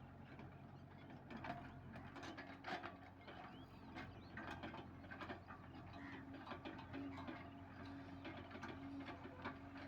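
Hitachi Zaxis 670LC excavator's diesel engine running steadily while the machine works, with irregular clanks and knocks from its bucket and metal parts.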